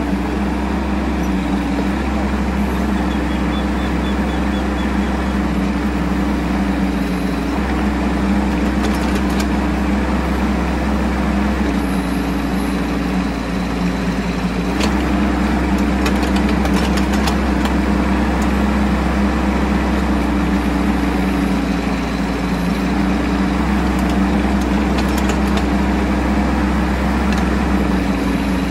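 Bobcat E10 mini excavator's diesel engine running steadily while it works, its note dipping and recovering several times as the hydraulics take and release load. A few short clicks come around the middle and near the end.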